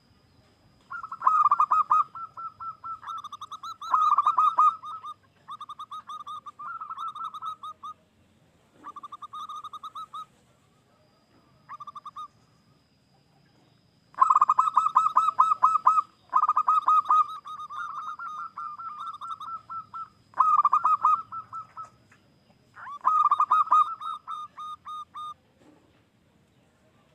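Zebra dove cooing in its song: repeated phrases of quick, rapidly pulsed coo notes, each phrase a second or two long, with short pauses between them.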